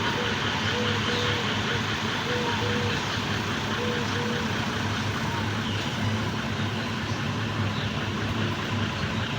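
Steady engine noise running at an even level, with a string of short, same-pitched tones over roughly the first half.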